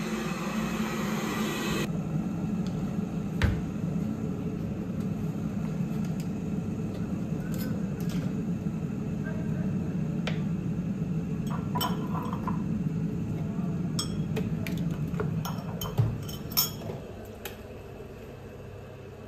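Clinks and taps of plastic supplement tubs, a bottle and a drinking glass on a kitchen counter, over the steady low rumble of an electric kettle heating water. Near the end the rumble stops as the kettle is lifted off its base, and hot water is poured into the glass.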